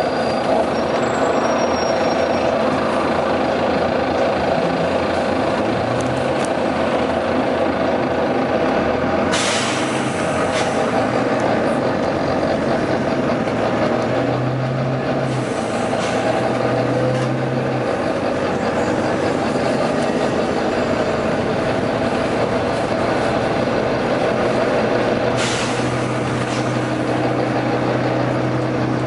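Volvo B9TL double-decker bus's diesel engine running steadily, with sudden bursts of compressed-air hiss from its air brake system: two loud ones about nine and twenty-five seconds in, and a fainter one around fifteen seconds.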